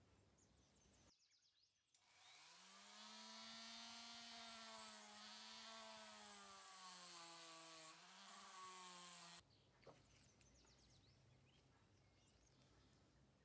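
Rotary tool with a small cut-off disc spinning up with a rising whine and cutting into a brass sleeve; the pitch wobbles and sags under load. It starts about two seconds in and stops abruptly about nine seconds in, leaving faint room tone.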